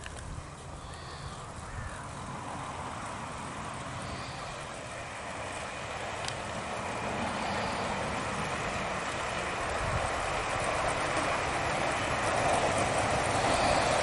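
A Gauge 1 (10 mm scale) model of a Stanier Coronation-class Pacific and its coaches running along garden track. A steady rolling rail noise grows gradually louder as the train comes closer.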